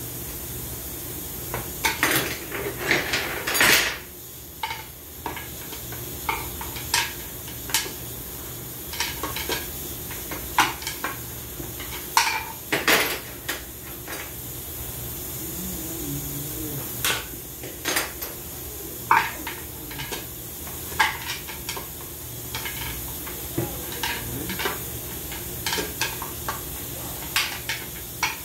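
Metal parts and hand tools clinking and tapping irregularly against the automatic transmission case as its internal parts are worked loose, with a few louder knocks.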